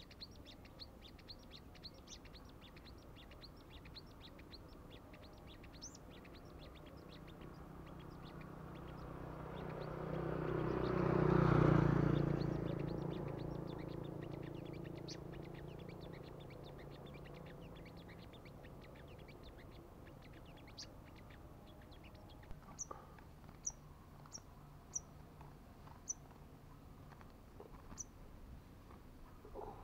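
Sunbirds chirping in rapid, sharp high notes, several a second, thinning later to a few separate chirps. Midway a motor vehicle passes, swelling and fading over several seconds, the loudest sound.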